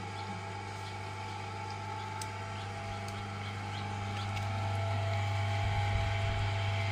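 Belt-driven electric potter's wheel running with a steady motor hum, growing louder about halfway through.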